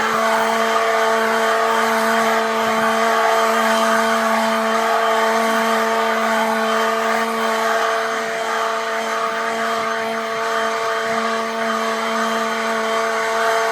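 A motor running loud and steady at one constant speed, giving an even, unwavering hum.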